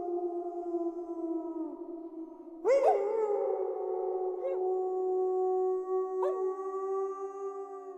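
Several wolves howling together in long, overlapping howls that slowly fall in pitch; a fresh howl swoops in about three seconds in, and the chorus fades away near the end.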